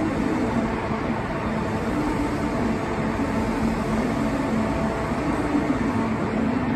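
Steady mechanical rumble of an underground railway station, with a few faint held hums over it. No train moves on the empty tunnel track.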